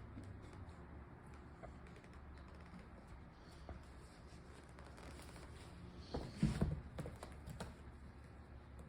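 A cat's paws batting and tapping at a toy on the floor: light, scattered taps, with a louder scuffle about six and a half seconds in.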